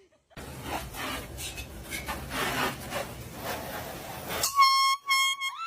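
Shuffling background noise with light knocks, then two short, loud blasts of a handheld air horn near the end.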